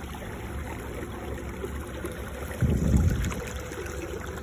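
A kayak moving steadily through river water under electric trolling-motor power, with water running along the hull and a low rumble. The rumble swells louder for about half a second near the three-second mark.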